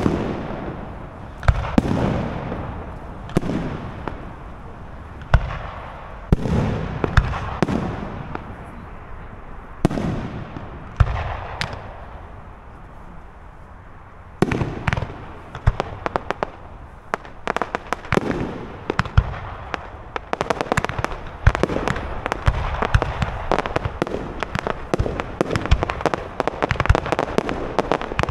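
Professional fireworks display: aerial shells burst with sharp bangs every second or two. After a short lull about halfway through, a dense, rapid run of bangs and crackles keeps going to the end.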